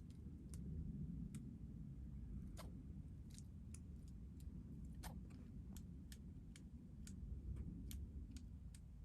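Faint, irregular sharp clicks, about two or three a second, over a steady low background noise.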